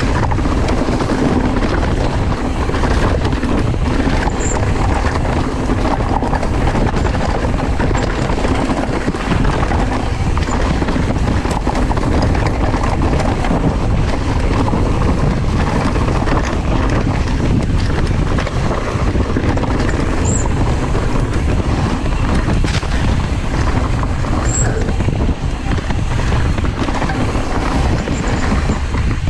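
Steady rushing wind on the microphone of a mountain bike rolling down a leaf-covered dirt trail, mixed with tyre and trail noise.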